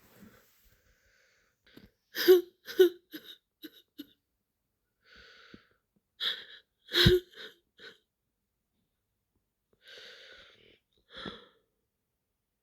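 A woman crying: short sobbing gasps, sniffs and wheezy breaths in clusters a few seconds apart, with silence between them.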